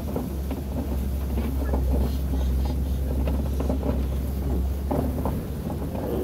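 Safari ride truck driving along, a steady low engine rumble with occasional knocks and rattles from the vehicle.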